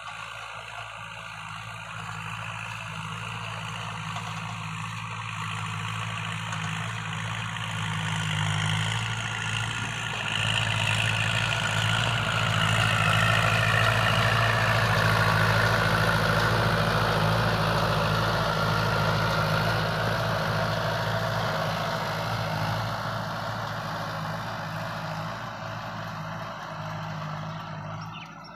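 Kubota L5018 tractor's four-cylinder diesel engine running steadily while driving a rotary tiller through dry field soil. It grows louder as the tractor passes close about halfway through, then fades as it moves away.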